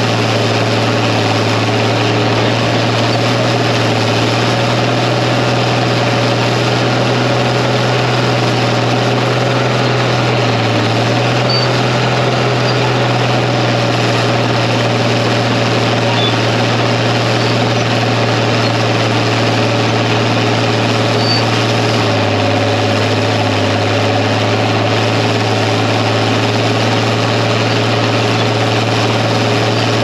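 Crawler bulldozer's diesel engine running steadily under load as the blade pushes clay soil. The engine note dips briefly twice, about ten seconds in and again a little past twenty seconds.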